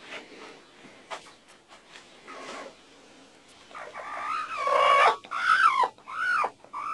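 A kitten mewing from under a brooding hen: a run of short calls, each rising then falling in pitch, starting about four seconds in, loudest near five seconds. Before that, faint rustling in the straw.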